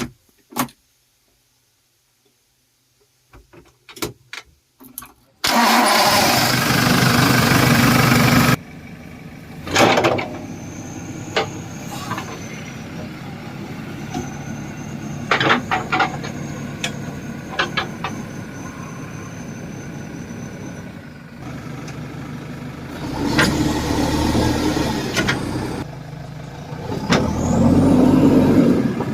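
A few knocks, then the JCB 3DX backhoe loader's diesel engine is cranked and started about five seconds in. It then runs steadily, rising in revs twice near the end.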